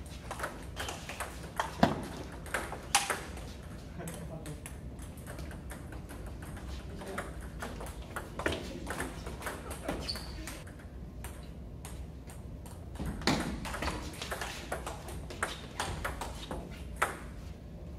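Table tennis rallying: a celluloid-type ball clicking sharply off paddles and the tabletop in quick runs of hits, with short pauses between points.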